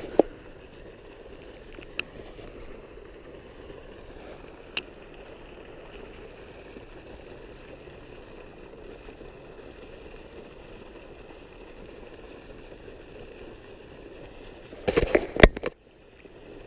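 Baitcasting reel being cranked through a slow lure retrieve: a low steady whirr with a faint thin whine above it, a few sharp clicks, and a short burst of knocks about fifteen seconds in.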